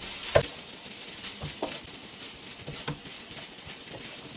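Fried rice sizzling softly in a pan on low heat, with a few knocks from stirring, the loudest about half a second in.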